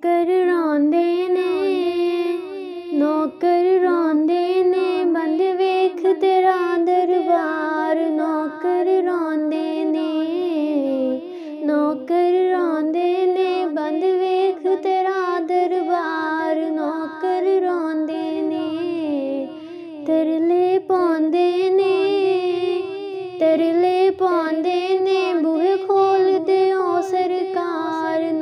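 A high voice singing a Punjabi naat, a devotional song for the Prophet, in a slow melody with wavering ornaments, pausing briefly for breath now and then.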